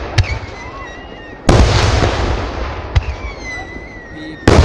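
Fireworks shells going off: four blasts in quick succession, two sharp cracks and two heavy booms that die away slowly. Thin whistling tones sound between the blasts.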